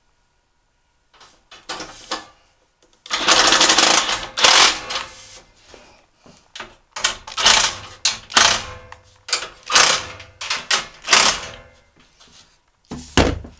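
Cordless power driver spinning in repeated short bursts, running screws in to fasten the outer shell of a kerosene forced-air heater back together.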